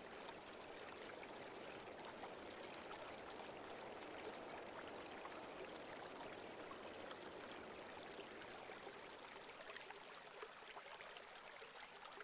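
Faint, steady rush of running creek water.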